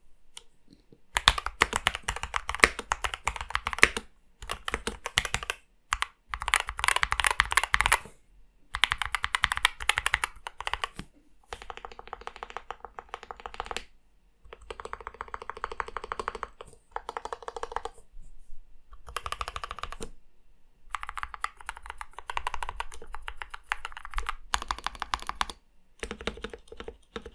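Fast typing on a DK61E 60% mechanical keyboard fitted with heavily modded Gateron Brown tactile switches, with a thocky keystroke sound. The keystrokes come in rapid runs of a second or a few seconds, broken by short pauses, some runs lighter than others.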